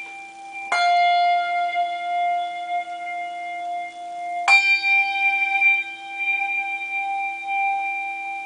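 Handbells rung with a tower swing: a bell is struck about a second in and again about four and a half seconds in, each ringing on with a tone that wavers as the bell is swung down past the floor and back up. The ringing is cut off sharply near the end.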